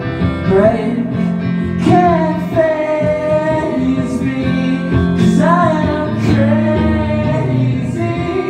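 Live indie rock song: a man singing a held melody over electric guitar and band.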